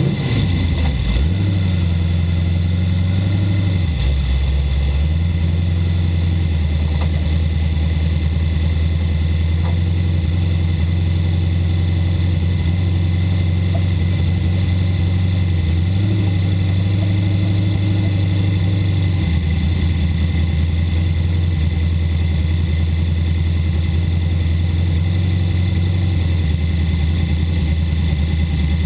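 Sportmod race car's V8 engine idling steadily, heard from inside the cockpit, its note dipping briefly about four seconds in.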